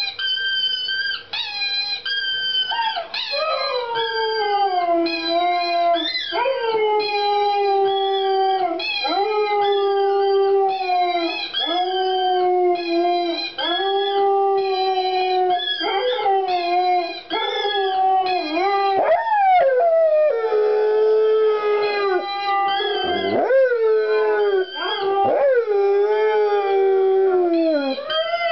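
Siberian husky howling, a long series of drawn-out howls that mostly fall in pitch, each lasting a second or two, set off by howling played from a video. Around two-thirds of the way through, several howls overlap.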